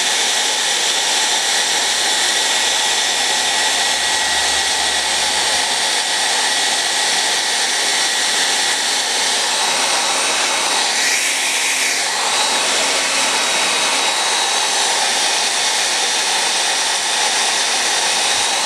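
Revlon hand-held hair dryer running steadily, blowing hot air.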